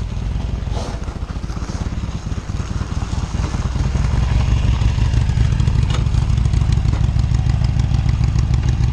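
Harley-Davidson Sportster's air-cooled V-twin engine running, getting louder about four seconds in.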